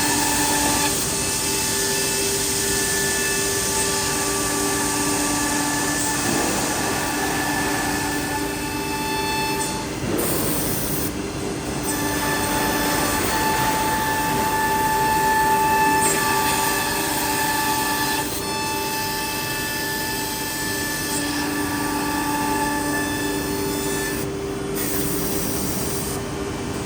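CNC nesting router at work: its spindle runs with a steady whine of several tones over a rushing cutting noise, the tones dropping out and returning every few seconds as it moves between cuts.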